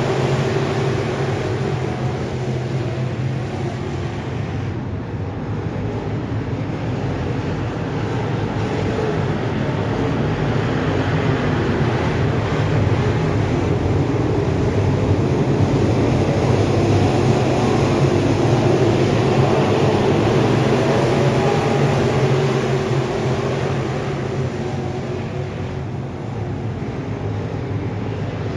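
A field of IMCA Sport Mod dirt-track race cars racing around the track, their V8 engines running hard together as one dense, continuous engine sound. It swells and fades as the pack comes around, easing about five seconds in and again near the end.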